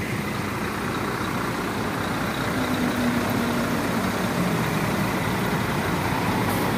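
Coach bus diesel engines idling close by, a steady drone.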